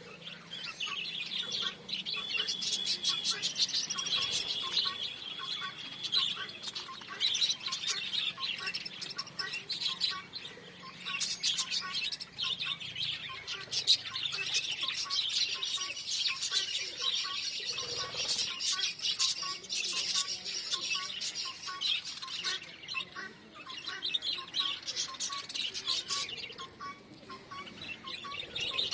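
A group of small pet parrots chirping and warbling continuously, a dense overlapping chatter of short high calls with one longer held whistle a few seconds in.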